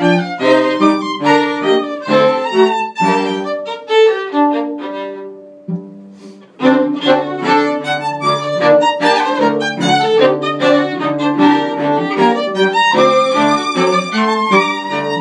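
String trio of two violins and cello playing. The music dies away to a faint held note about six seconds in, then all three come back in at full strength.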